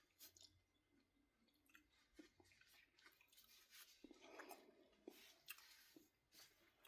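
Faint chewing and crunching of popcorn in the mouth, with scattered small clicks.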